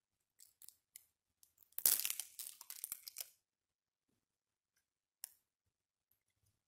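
The sealing film being peeled off a prepackaged communion cup to free the wafer: a few small clicks, then a tearing, peeling sound for about a second and a half, and one more click near the end.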